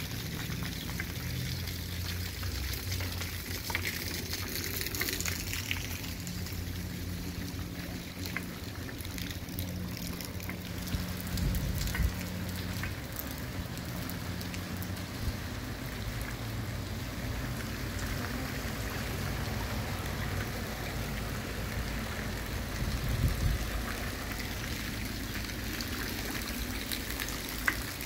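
Steady light rain falling on a wet paved street, an even hiss with a low rumble underneath.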